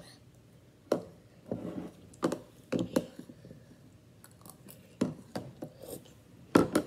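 Metal spoon clinking and scraping against a glass mug of cereal as it is stirred and scooped: a run of separate clinks and short scrapes, the loudest near the end.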